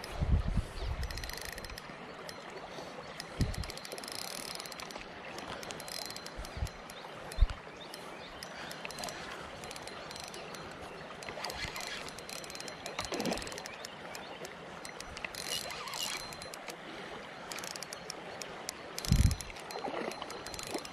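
Spinning reel clicking as a fish is reeled in, over a steady rush of creek water, with several dull bumps of handling, the loudest near the start and near the end.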